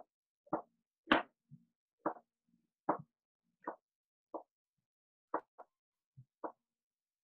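Kitchen knife slicing through a white onion and tapping the cutting board, a dozen or so separate knocks spaced unevenly, each under a second apart.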